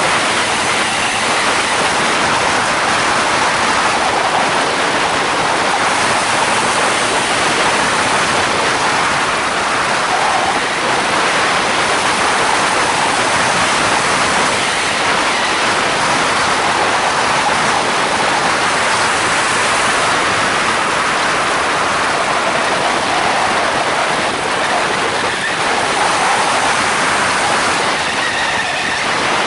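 Loud, steady rush of wind over the trike-mounted camera's microphone, mixed with the noise of the mono trike's Polini Thor 250 single-cylinder two-stroke engine driving its pusher propeller.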